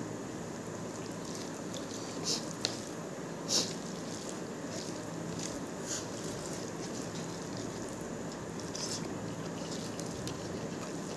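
Wet, squishy sounds of fingers mixing rice with saucy chicken chilli on a plate. A few short sticky clicks stand out, the loudest two about two and three and a half seconds in, over a steady background hiss.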